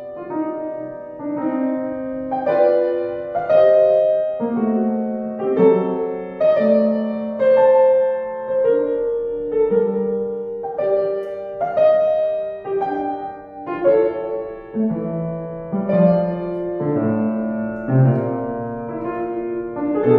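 Kawai upright piano played solo: a classical piece of held chords under a melody line, the phrases swelling and fading about once a second.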